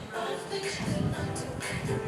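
Pop music with a steady beat and sung vocals.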